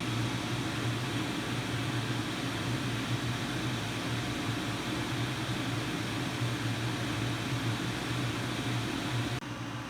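Shinil SMA-C9000K PLUS portable air conditioner running: a steady fan rush over a low, constant hum. Near the end it drops slightly and sounds duller.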